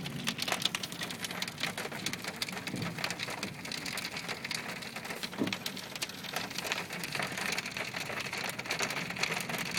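Hailstones pelting a hard surface: a dense, irregular patter of sharp clicks over a steady hiss of falling rain.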